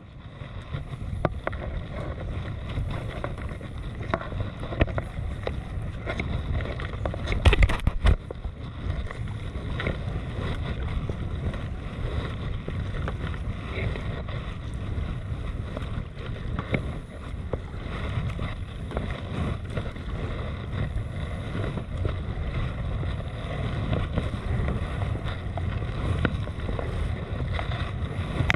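Sea kayak being paddled on open water: water lapping and splashing with the paddle strokes, under steady wind noise on the microphone. There is a louder rush about seven and a half seconds in.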